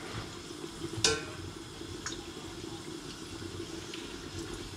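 A long stirring utensil working gram flour and oil in a deep heavy-bottomed pot, knocking sharply against the pot about a second in and more lightly a second later, over a steady watery bubbling from boiling water.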